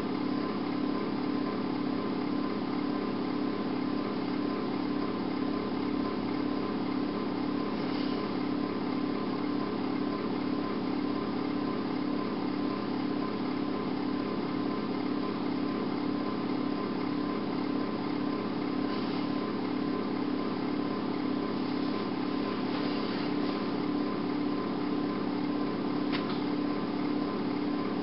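A steady, even hum with a low drone, unchanging throughout, with a few faint brief hisses.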